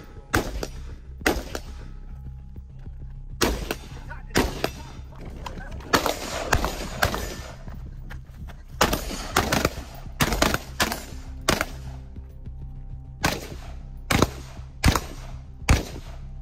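Rifle gunfire: about fifteen single shots at irregular spacing, some fired in quick pairs and strings, others a second or more apart. Background music with steady low bass runs underneath.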